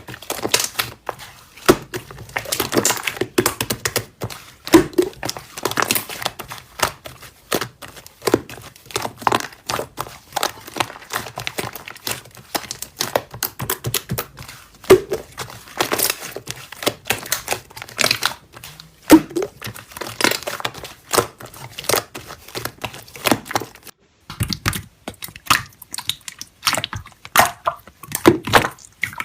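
Slime being squeezed, pressed and stretched by hand, giving a dense, irregular run of sticky clicks, pops and crackles as air pockets in it burst.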